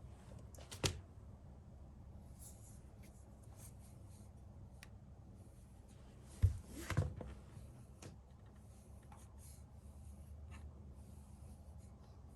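Light scratchy rubbing of a rice-paddle-shaped dog-stroking tool (inu shamoji) being drawn through a Pekingese's fur in short repeated strokes. There are two knocks: a small one about a second in and a louder one about two-thirds of the way through.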